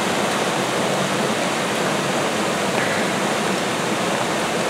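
Floodwater rushing and churning as it surges out of an overflowing storm drain channel into a flooded street: a steady, loud rush. The drain is saturated and can't keep up with the storm runoff.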